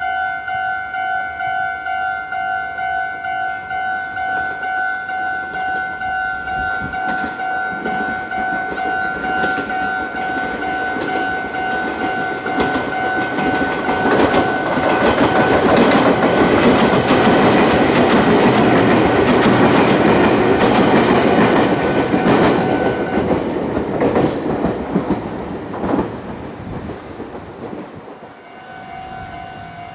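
A Japanese level-crossing warning bell rings in a two-tone ding about twice a second. About halfway through, a Meitetsu train runs over the crossing and its wheels clack over the rail joints. The bell stops as the train clears, and a crossing bell rings again near the end.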